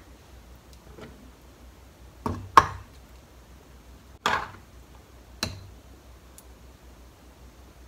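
A serving spoon knocking against a clay pot and a ceramic bowl while rice porridge is scooped and served: a quick pair of knocks about two seconds in, the loudest, then single knocks at about four and five and a half seconds.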